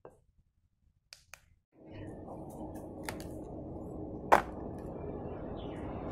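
A steady rumbling background noise sets in just under two seconds in, and a little past four seconds a single sharp, loud click sounds as a black electric kettle is set down on its base.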